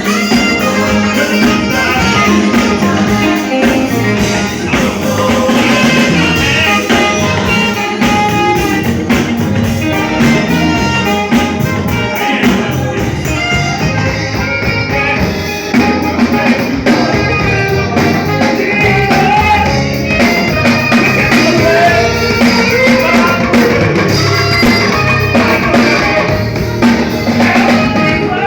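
A live band playing music, loud and continuous.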